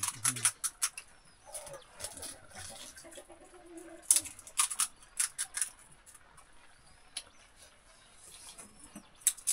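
Crisp puri shells crunching as people eat pani puri, a run of sharp little cracks and clicks in clusters, heaviest about four to five and a half seconds in, with a faint low murmur between them.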